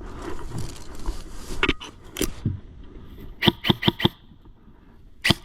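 Airsoft guns firing: a few single shots, then a quick string of about five, then two more near the end.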